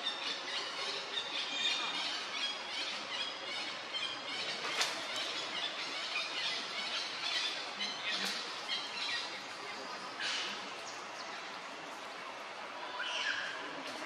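Short high-pitched animal squeals and chirps, a cluster of them in the first few seconds, then a few sharp single squeaks, over a steady outdoor background hiss.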